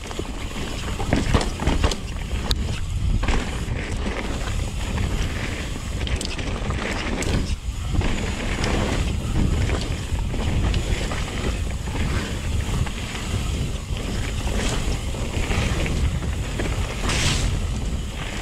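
Wind rumbling on the microphone of a camera riding on a Yeti SB150 full-suspension mountain bike as it descends a dirt trail at speed, with tyres on loose dirt and frequent clicks and knocks as the bike rattles over roots and rocks.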